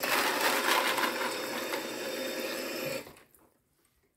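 Tap water running into a plastic tray of frozen red chillies, filling it, then cut off about three seconds in.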